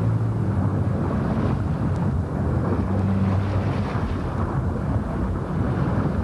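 Loud, steady low rumble and rushing noise of open sea and wind, with a low droning hum that swells and fades.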